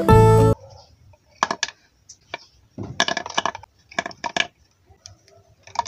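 Plastic pens and markers clicking against each other and a wooden pen holder as they are dropped in, a series of short sharp clicks in small irregular clusters.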